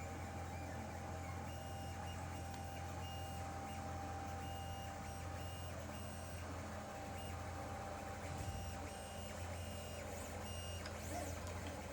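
Lulzbot TAZ 3D printer running: its motors whine in short on-off moves over a steady low hum.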